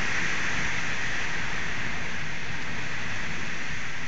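Hurricane wind and rain: a loud, steady rushing hiss with a low rumble underneath.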